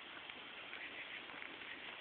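Faint summer-night outdoor ambience: a steady hiss with scattered faint chirps.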